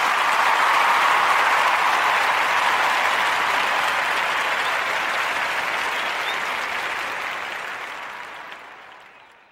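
Recorded crowd applause that rises quickly and then fades out gradually over the last few seconds.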